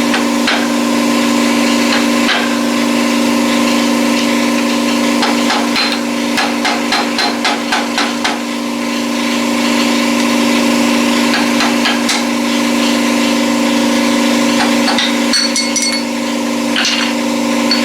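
An engine running steadily, with a run of sharp metal clicks about three a second midway through and scattered knocks, from hand work greasing a zero-turn mower's stiff front caster.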